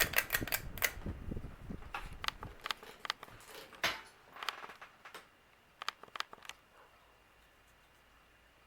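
A series of sharp clicks and light knocks, with a low rumble that fades out about two and a half seconds in, just after a ceiling fan is switched off; the clicks thin out and stop near the end, leaving faint room tone.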